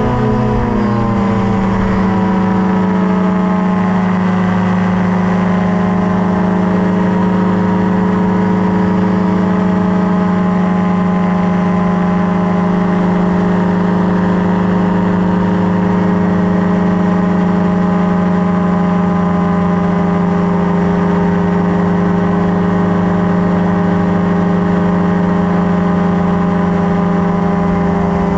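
Tandem paramotor trike's engine and propeller running through the takeoff roll and climb-out, with a steady, even drone. Its pitch dips slightly in the first second or two, then holds level.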